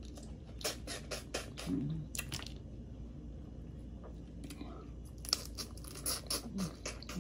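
Boiled crawfish shells being cracked and peeled by hand and eaten: crisp clicks and crackles with chewing, in two spells, one at the start and another from about five seconds in.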